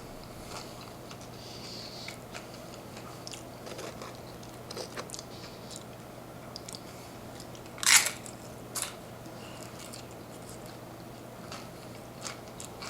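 A person eating nachos: scattered crunches of tortilla chips and chewing, with one louder sharp crunch about eight seconds in and a smaller one just after. A faint steady low hum runs underneath.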